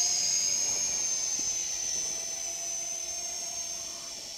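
Small quadcopter drone in flight, its propellers and motors making a steady high-pitched whine that grows fainter near the end.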